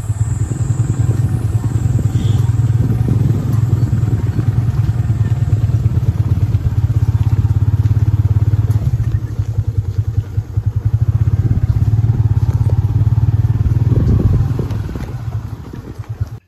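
Motorcycle engine running steadily under way on a dirt track, with a rapid low pulsing; it eases off and fades down near the end.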